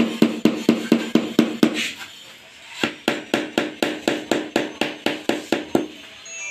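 Rubber mallet tapping quickly on a stone countertop slab to bed it down, about six blows a second, in two runs with a short pause about two seconds in, stopping about a second before the end.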